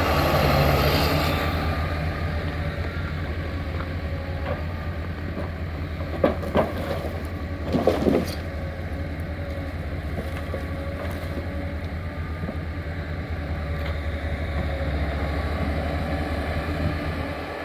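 Timberpro 840B forwarder's diesel engine running steadily with a low hum, with a few short knocks near the middle.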